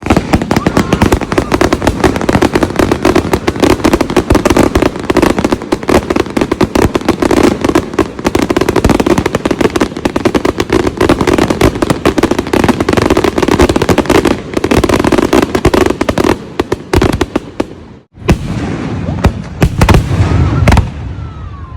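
Fireworks going off in a dense, rapid string of crackling bangs that thins out about 16 seconds in. After a brief break a few louder bangs follow.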